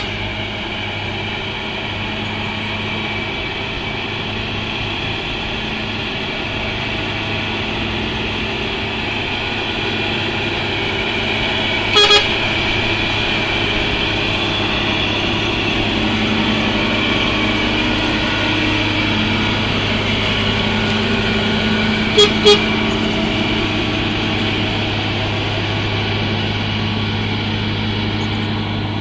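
Heavy truck engine running steadily under load as it climbs a steep incline, with a short horn toot about twelve seconds in and two quick toots about 22 seconds in.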